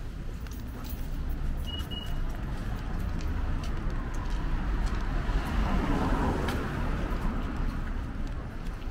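City street traffic on a wet road, with the hiss of a vehicle passing that swells and fades about six seconds in, over a steady low rumble.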